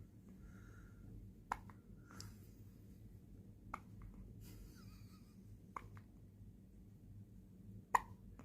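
A baby hiccuping: four short, sharp hiccups about two seconds apart, with soft breaths between them.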